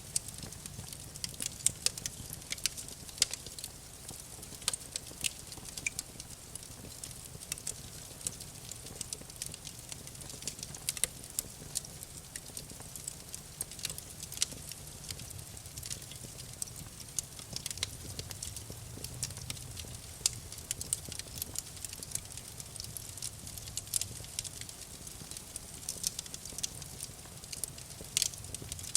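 Wood campfire burning, crackling with frequent sharp, irregular pops over a low, steady rumble.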